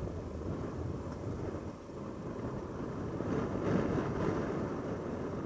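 Honda XR650L's single-cylinder four-stroke engine running as the dirt bike rides over rough trail, with wind noise on the microphone. The sound gets louder and more clattery about three and a half seconds in.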